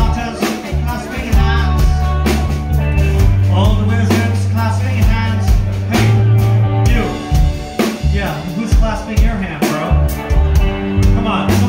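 Live rock band playing amplified through a venue PA: drum kit, bass and electric guitar, with a singing voice over them.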